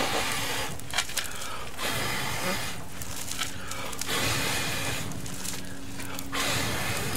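A person blowing hard by mouth into a pit fire to fan the flames, a series of breathy puffs about a second apart, each broken off for a fresh breath.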